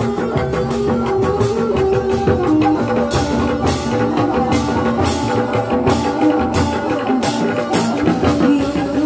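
Dogdog drums of a Sundanese reak ensemble, beaten by hand in a fast, interlocking rhythm together with a large barrel drum, under a held melody line that moves in steps. About three seconds in, sharper and brighter strikes join the drumming at roughly two a second.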